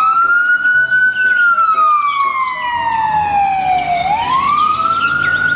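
Ambulance siren wailing: one tone climbs, falls slowly over a few seconds, then climbs again.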